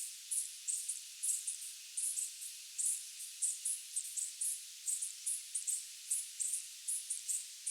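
Night-time insects chirping in short, high-pitched pulses, several a second at an uneven pace, over a steady high hiss of more insects.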